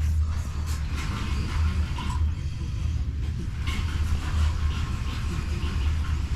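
A steady low hum, with rustling and light clicks over it from patch material being handled.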